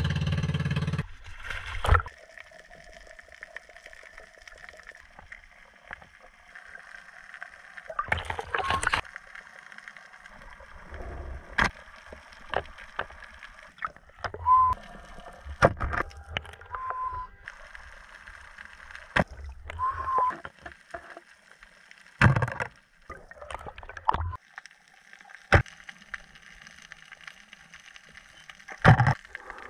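Underwater audio from a diver's camera: gurgling, bubbling water with scattered sharp clicks and knocks and a few louder bursts. For about the first second, the outrigger boat's engine runs with a loud low rumble, then cuts off.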